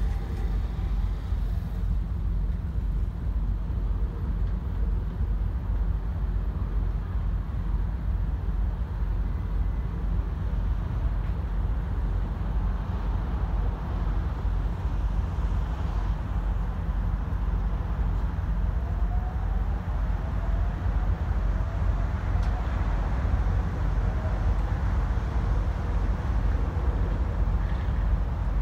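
Steady low rumble of road traffic, cars and trucks passing on the bridge. About two-thirds of the way through, a faint rising whine comes in as the Seaside Line automated guideway train pulls away from the station.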